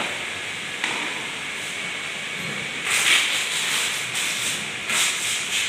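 Steady hissing noise, with short, louder noisy bursts about one, three and five seconds in.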